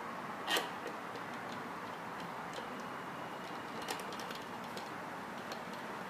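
Cross-head screwdriver tightening the fixing screws of a smart door lock: scattered light metal clicks and ticks, with one louder click about half a second in, over a steady hiss.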